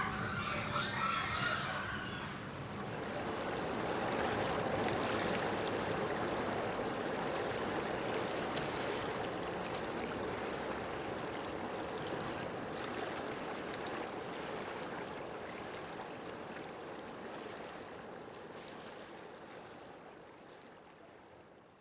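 Steady rush of running water, slowly fading out near the end, with a crow cawing in the first couple of seconds.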